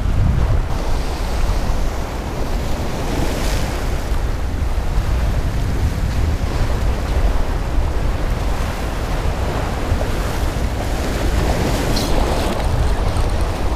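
Ocean waves breaking and washing against jetty rocks, with wind buffeting the microphone as a steady low rumble.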